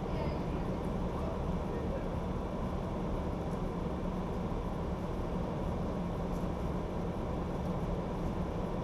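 Recovery vehicle's engine idling steadily under the hood, a low even hum.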